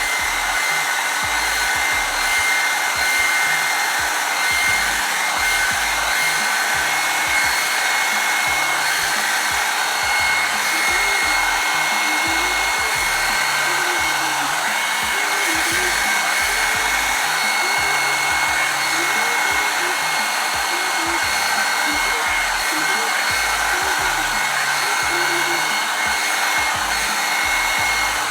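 Revlon One-Step hair dryer brush running steadily: a rushing blast of air with a steady high motor whine.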